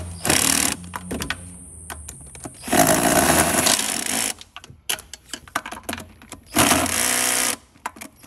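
Cordless drill-driver spinning intake manifold bolts in, in three bursts, the middle one the longest, with clicks and rattles of the bolts and tool between them.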